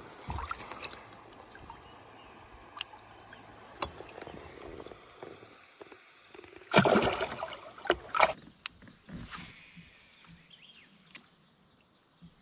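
Water splashing at a kayak's side as a smallmouth bass is released by hand: a loud splash about seven seconds in and a shorter one about a second later, with small knocks and sloshing before them.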